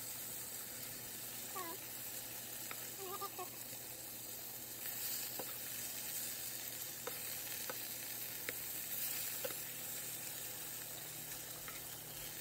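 Chicken breasts frying in a pan: a steady sizzle with scattered sharp pops from spattering fat.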